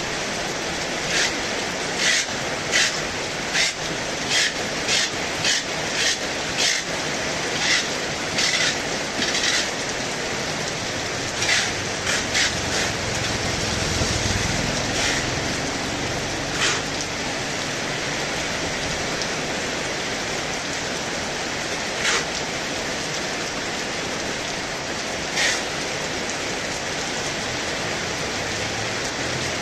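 Heavy rain falling steadily, with irregular sharp taps that come every second or so at first and then only now and then. A low swell rises and falls about halfway through.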